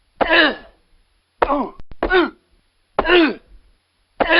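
Boxing punch sound effect: a run of five short, pained male grunts about a second apart, each falling in pitch and each opening with a dull thud of a blow, with a couple of sharp clicks in between.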